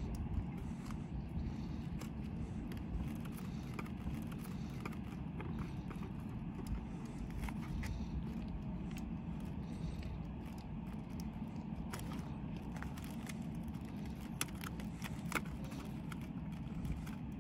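Wind rumbling on the microphone, with a few faint clicks and scrapes of hands and a small tool working on a model aircraft's wing, two sharper clicks near the end.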